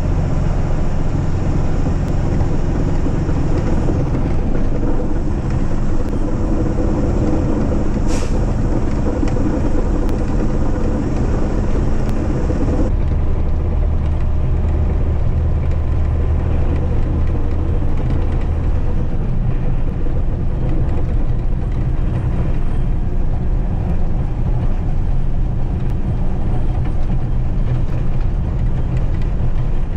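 Diesel engine of a Mack Granite snowplow truck droning steadily under load, heard from inside the cab, along with the noise of the plow pushing snow. The drone's tone shifts about thirteen seconds in.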